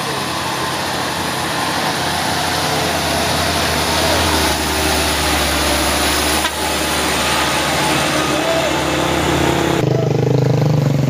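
Diesel engine of a Mitsubishi Colt Diesel light truck running under load as the truck passes close by on a rough gravel road, with tyre noise, getting louder toward the middle. About ten seconds in, the sound cuts abruptly to a different engine with a steadier pitched note.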